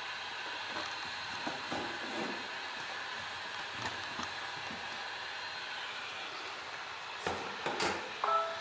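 Temperature-controlled heat gun blowing steadily, a hiss with a faint high whine. A few scattered clicks and taps sound over it, louder ones near the end, followed by a short beep-like tone.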